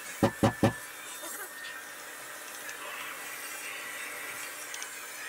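Three quick knocks in a row, about a fifth of a second apart, as a wooden board is tapped down and pushed into place against the fence stops on a CNC machine's MDF spoilboard.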